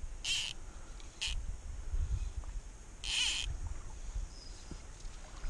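Three short, high buzzy calls from a small creature: one about half a second long, a brief one a second later, and another half-second call about three seconds in. Under them is a low rumble of wind on the microphone.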